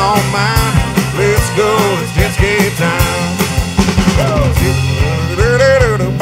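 Rock band playing an instrumental passage: drum kit with cymbals and a steady bass under a melodic lead line that bends up and down in pitch.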